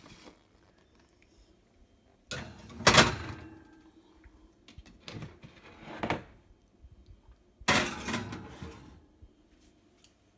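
Metal pans and a glass baking dish knocking and scraping on wire oven racks as they are slid into an open oven. A loud clatter comes about three seconds in, two short knocks follow around five and six seconds, and another clatter comes near eight seconds.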